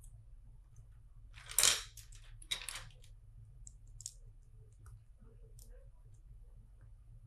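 Loose plastic LEGO bricks being handled: a short clatter of bricks about a second and a half in, the loudest sound, another smaller one just after, then scattered small clicks.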